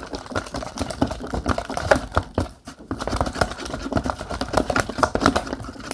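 Gloopy borax slime being stirred in a bowl: a rapid, irregular run of sticky clicks and taps.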